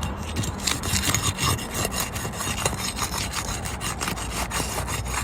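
Asphalt shingle being pried up and unsealed from the course below: a continuous run of rasping scrapes and crackles as the sealant strip tears loose and granules break off.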